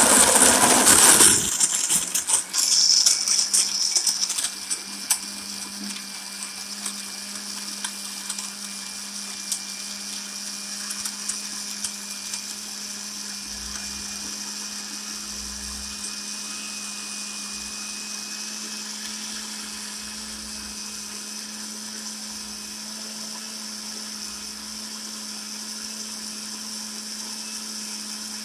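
Electric countertop blender with a glass jar blending milk, papaya, oats and ice. It is loud and rattling for the first four seconds or so as the ice is crushed, then settles into a steady motor whir as the mix turns smooth.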